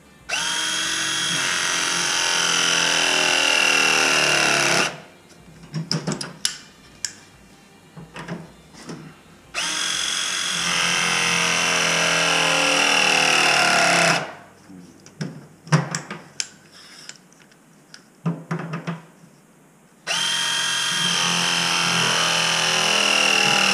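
Battery-powered ProPress tool pressing copper press fittings onto a baseboard heating element: three full press cycles of about four and a half seconds each, the motor running with a steady whine. Short clicks and knocks come between the cycles as the tool is moved to the next fitting.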